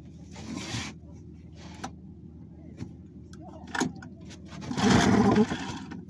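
One pull on the recoil starter of an old two-cylinder outboard motor about five seconds in, the engine turning over briefly without catching, after a few light clicks of hands working the controls. The engine keeps refusing to start, which the owner suspects is fuel not getting through.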